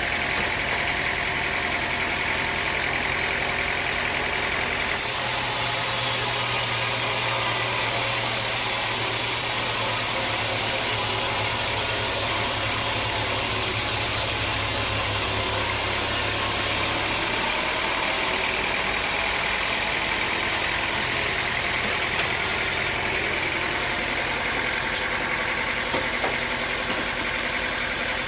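Sawmill machinery with an engine running steadily. A high hiss grows louder about five seconds in and drops back about twelve seconds later.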